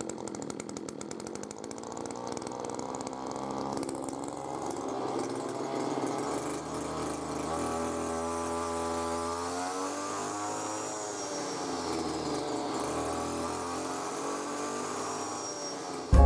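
Zenoah BC2710 brush cutter's small two-stroke engine running. It revs up, drops back and revs up again near the end, with a thin high whine rising and falling along with it.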